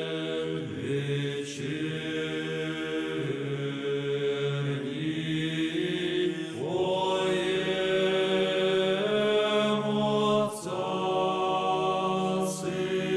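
Background music: a slow sung chant by low voices, holding long notes that change every few seconds.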